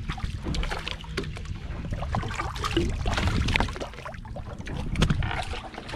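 Water sloshing and lapping against a fishing boat's hull, with a low rumble and irregular small knocks and clicks.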